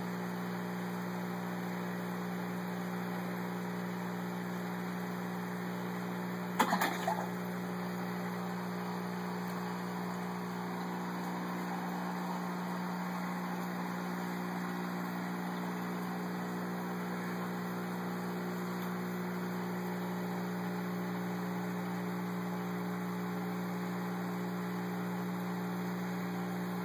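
Steady hum and water hiss of aquarium filtration and an air pump running. A brief clatter of a few knocks comes about six and a half seconds in.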